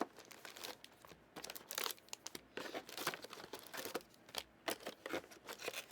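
Trading card pack wrappers crinkling and being torn open, with irregular sharp crackles and rustles as the packs are ripped and the cards handled.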